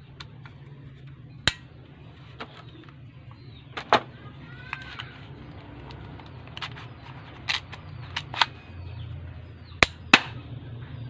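Sharp metallic clicks and clacks from a full-metal spring airsoft pistol being handled: the hammer and mechanism snapping, about half a dozen separate clicks, two close together near the end.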